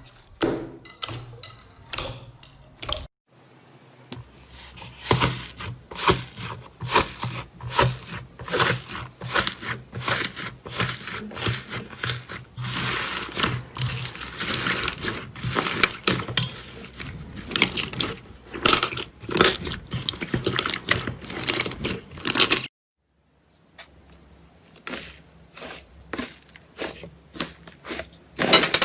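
Slime being squeezed and worked by hand, giving dense, irregular crackling and popping clicks, cut off by two brief silences.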